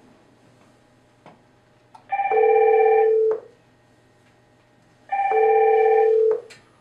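AP-PCT100N IP phone ringing twice with an electronic ring of a few steady tones, each ring about a second long, as an incoming emergency intercom call. The ringing stops after the second ring as the call is answered.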